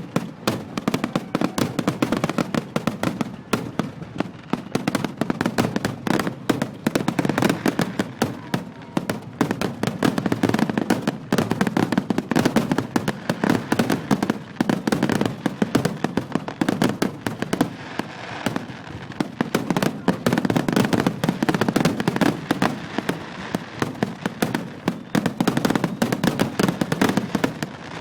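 Fireworks display finale: a dense, continuous barrage of shell bursts and crackling reports, many bangs a second without a break.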